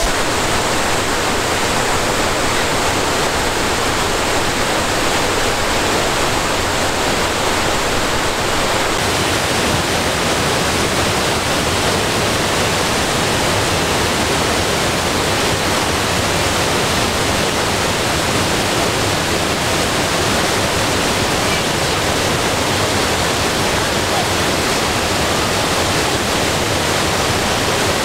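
Kuang Si waterfall cascading over limestone tiers into pools: a loud, steady rush of falling water.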